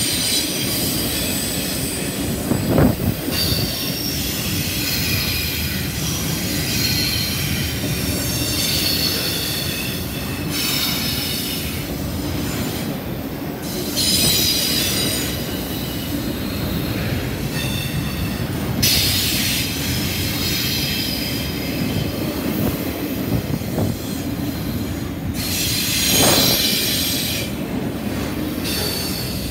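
Freight wheels rolling past on the rail with a steady rumble, as a CSX double-stack intermodal train's well cars go by. A high-pitched wheel squeal comes and goes throughout, and there is an occasional sharp clunk, once about three seconds in and again near the end.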